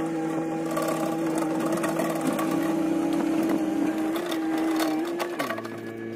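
Excavator engine running steadily, its pitch dropping abruptly about five seconds in, with a few sharp clicks over it.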